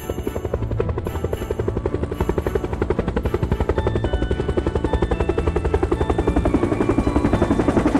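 Cartoon sound effect of a propeller plane's engine running, a rapid, even chugging of about eight beats a second that carries on steadily throughout.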